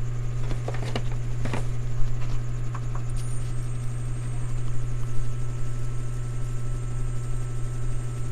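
Steady low electrical mains hum with a few light clicks in the first two seconds. About three seconds in, a faint, high, thin whine starts and holds steady, fitting the CRT television powering up for a test with the screen-line mylar capacitor lifted.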